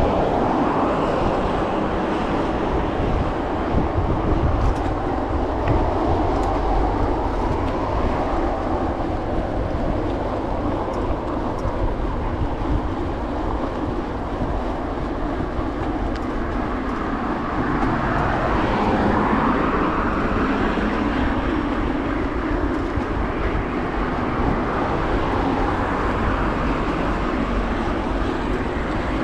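Steady rushing rumble of a bicycle being ridden along a paved path: wind buffeting the microphone and tyres rolling on the paving, swelling a little about two-thirds of the way through.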